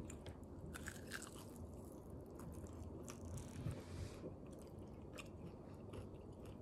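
Faint close-up chewing of a crispy fried chicken wing, with scattered small crunches of the breaded skin.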